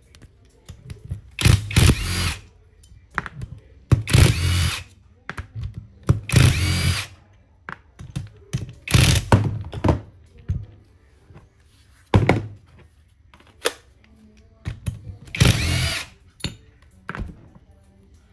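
Einhell cordless drill/driver run in about six short bursts of roughly a second each, its motor whine rising and falling as it backs screws out of a pressure-washer pump head, with small knocks of metal parts between the runs.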